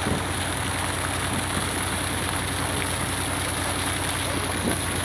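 Boat engine running steadily at low revs, a constant low drone.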